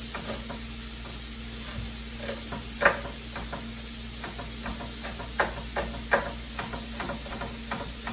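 Knife chopping onion on a slatted bamboo cutting board: irregular sharp taps, several a second, with a loud chop about three seconds in. A faint sizzle of chorizo frying in a pan runs underneath.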